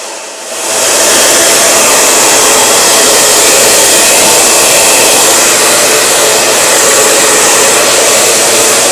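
Handheld hair dryer blowing hard on hair during a blowout. It gets much louder about half a second in, then runs steadily.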